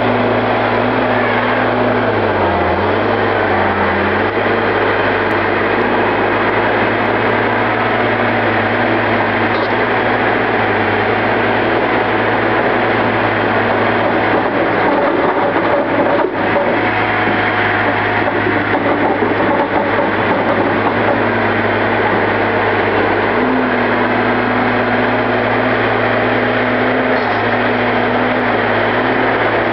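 Knuckleboom log loader's diesel engine running steadily under hydraulic load as it works trees through a pull-through delimber. The engine note dips briefly a few seconds in and shifts again later as the load changes.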